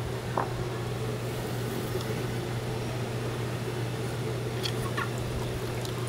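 A steady low hum of room equipment, with a few faint light clicks and no loud event.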